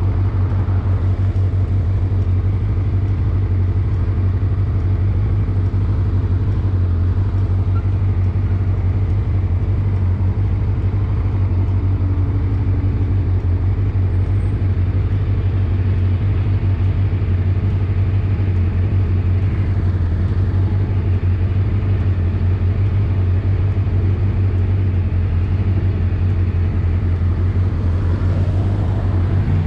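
Motorcycle running at a steady cruise, a constant low drone with no gear changes or revving.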